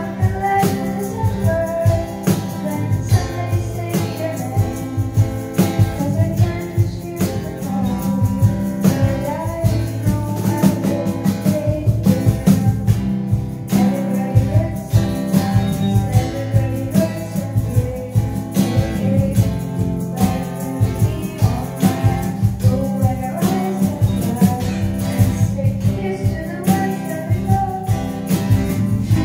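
Amateur live acoustic music: a cajon beating a steady rhythm under acoustic guitar, with singing into a microphone.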